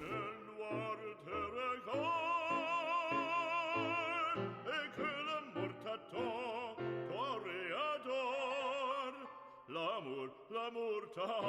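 Background music: an operatic-style singing voice holding long notes with a wide vibrato over a lower accompaniment.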